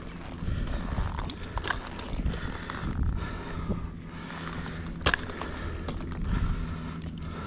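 Climbing rope and hardware being handled up in a tree: the rope rustles and scrapes through the system while slack is pulled, with scattered metal clicks and one sharp click about five seconds in.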